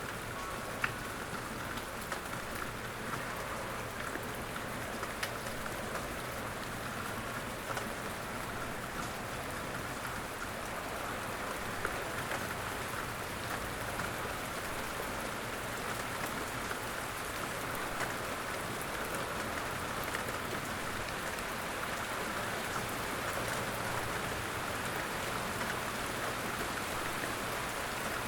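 Steady outdoor rain falling, with scattered drops tapping on surfaces.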